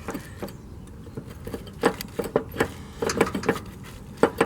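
Worn-out pulley bearing on a Husqvarna zero-turn mower deck, worked by hand, giving a series of irregular clicks and rattles, busier in the second half: the bearing is failing.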